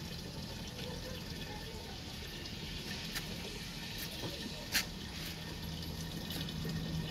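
A thin stream of water running from a pipe outlet into a plastic jerrycan as it fills, with a couple of brief clicks partway through.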